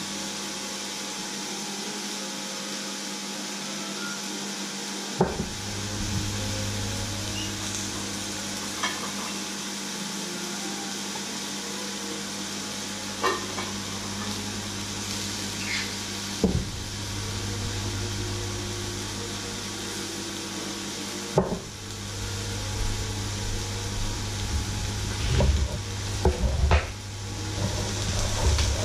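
Marinated meat sizzling in a hot cast-iron grill pan, a steady frying hiss with a few sharp pops, over a steady low hum. Near the end, crinkling handling noise as a plastic bag is picked up.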